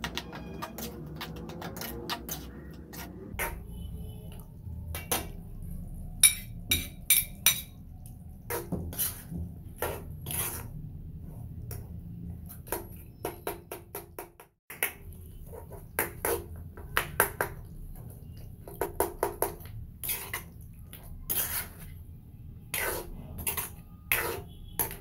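Metal ladle scraping and clanking irregularly against a black metal karahi as mutton karahi is stirred, over a steady low rumble.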